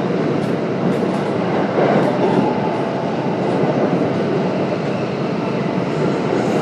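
Kintetsu 1031 series electric train running between stations, heard from inside the car: a steady rumble of wheels on rail with scattered short clicks.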